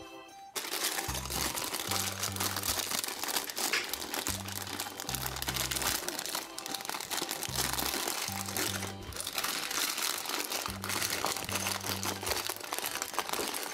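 Clear plastic bag of Lego bricks crinkling and crackling as it is picked up and handled, starting about half a second in, over background music with a repeating bass line.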